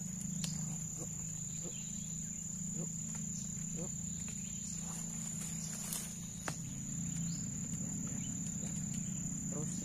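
Insects trilling steadily at a high pitch over a low, steady drone, with a few faint short chirps now and then.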